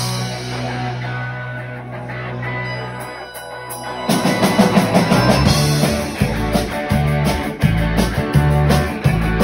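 Live rock band of electric guitars, bass and drum kit. A struck chord rings out with a held low note, then about four seconds in the full band comes in louder with a driving beat and a pulsing bass line.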